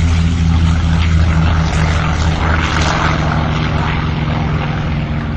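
F4U Corsair's Pratt & Whitney R-2800 radial engine running at takeoff power on the takeoff roll, a loud, steady, deep propeller drone that eases slightly near the end.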